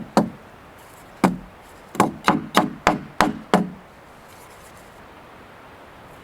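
Hammer blows on cedar lumber: two separate strikes, then a quick run of six at about three a second, as a support is fastened to the rack frame.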